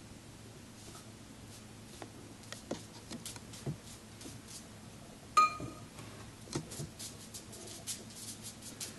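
Ink brush dabbing and flicking quick strokes onto unsized Xuan rice paper over a felt pad: a run of soft taps and scratches. About five seconds in there is a single bright, ringing clink.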